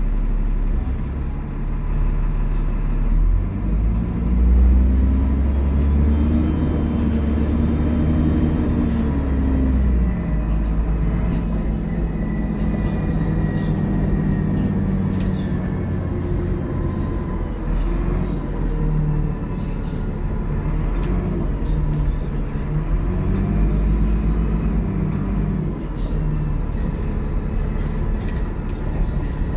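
Dennis Trident double-decker bus engine working hard under way, its pitch climbing and dropping back several times as the bus accelerates and changes gear. A steady high tone runs under it, and a high whine falls in pitch about halfway through, with rattles and clicks from the bodywork.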